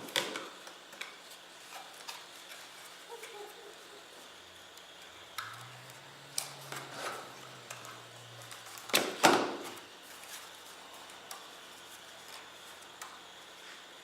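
Packaging being handled while an Intel Core i7 CPU's retail box is worked open: scattered light clicks and taps, with a louder rustle right at the start and the loudest cluster of knocks and rustling about nine seconds in.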